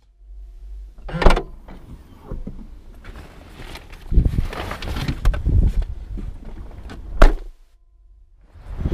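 Car doors and open boot being worked: a sharp bang about a second in, rustling and knocking of bags and gear being handled in the boot, then a louder bang shortly before the end, like the tailgate being shut.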